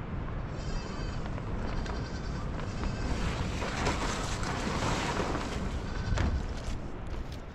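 Sheep bleating several times over a steady rushing noise that swells louder in the middle.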